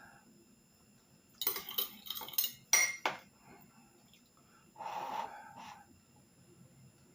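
Cup and spoon clinking: a quick run of sharp clinks and knocks about a second and a half in, then a softer, noisier sound lasting about a second around five seconds in.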